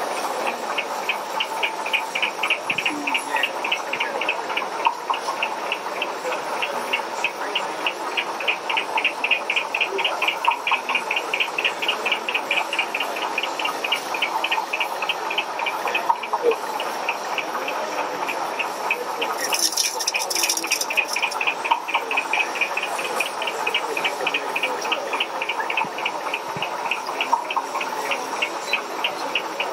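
Model dragline excavator's winch mechanism working, giving a rapid, even ticking of several ticks a second.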